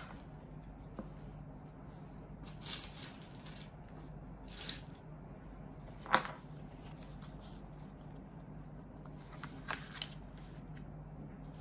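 Merch being handled on a tabletop: a plastic hand fan and a stack of photo cards slide and rustle against a fabric banner, with one sharp tap about halfway through. A faint steady low hum sits underneath.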